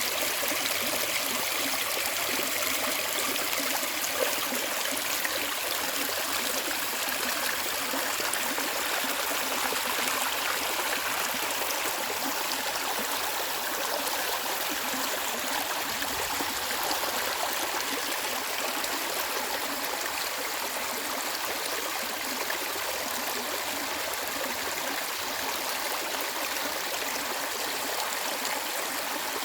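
Mountain stream flowing over rocks: a steady babbling and gurgling rush of water.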